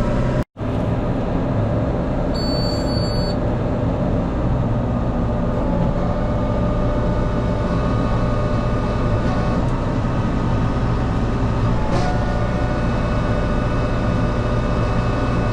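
Tractor engine running steadily, with a short high electronic beep about two and a half seconds in.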